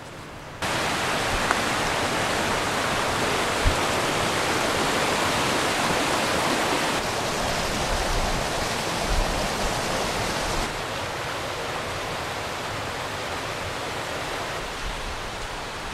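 Fast-flowing mountain river, a steady rushing hiss that cuts in abruptly about half a second in and thins slightly in its upper range near the end.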